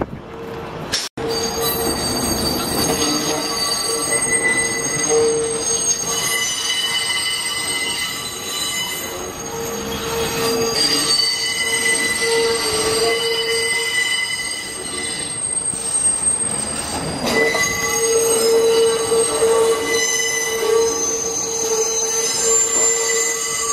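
New York City subway train (R142 cars) with its steel wheels squealing on curved track: several steady high-pitched tones that swell and fade over the rumble of the moving cars. The sound cuts out briefly about a second in.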